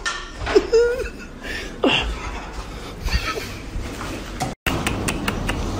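A man chuckling under his breath in a few short bursts of suppressed laughter.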